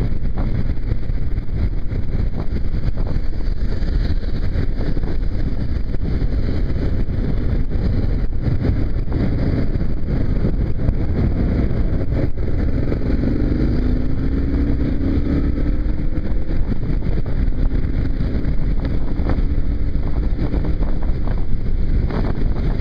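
Single-cylinder Kawasaki KLR dual-sport motorcycle running at road speed, its engine and road noise mixed with steady wind buffeting on the microphone in gusty wind.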